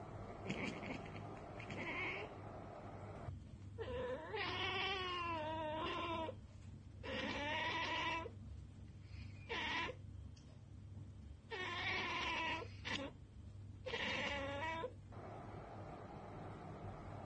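Domestic cat chattering and chirping: about six separate drawn-out calls with pauses between them, the longest about two seconds with a quavering, wobbling pitch. This is the chatter cats make on spotting a bird or insect they cannot get to.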